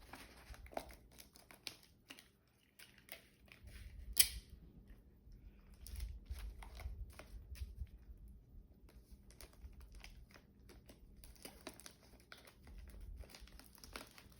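Masking tape being pulled off the roll, torn and pressed down over paper, with paper crinkling and scattered small clicks. There is one sharp tearing snap about four seconds in.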